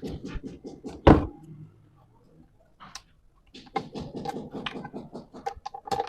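Wooden parts being handled: irregular clicks and knocks with short stretches of rubbing, and one sharp knock about a second in.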